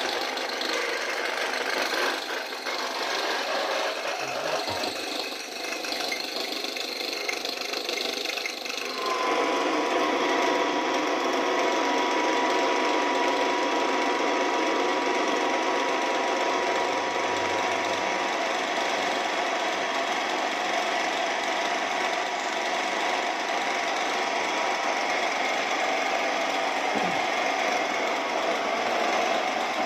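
Small electric grain mill running, grinding a homemade fishing-bait mix, a continuous rough machine noise. About nine seconds in it grows louder and settles into a steady run with a constant whine.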